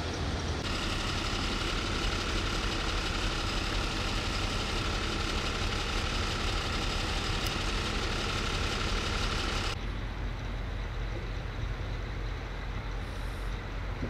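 Steady low rumble of an idling vehicle engine with a hiss and a thin steady whine over it; the hiss and whine cut off abruptly about ten seconds in, leaving the low rumble.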